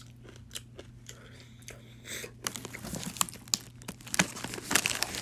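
Roasted corn kernels (Corn Nuts) being chewed, a few scattered cracks at first, then a dense run of crunches from about halfway through.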